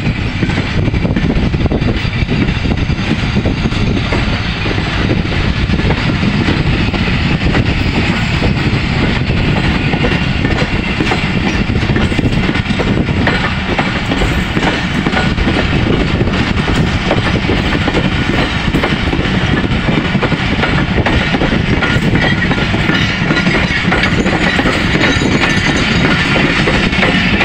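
Pakistan Railways passenger coaches passing close by on the track, steady rolling noise of wheels on rail with a continuous clatter of clicks as the wheels cross the rail joints.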